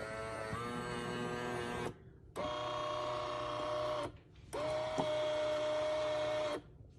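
Café Affetto automatic espresso machine's built-in bean grinder motor running in three bursts of about two seconds each, with a steady whine that steps in pitch once early on. It is the machine's first, unprimed attempt at an espresso, with the beans not feeding through; the machine then calls for beans to be added and stirred.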